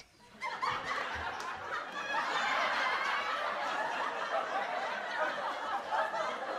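Audience laughing, many voices together, starting about half a second in and carrying on steadily.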